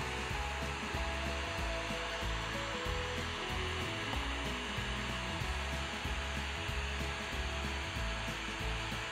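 Portable FM radio's speaker giving a steady static hiss, the FM buzzing of a receiver tuned to 81.5 MHz with no clean signal from the homemade transmitter to quiet it.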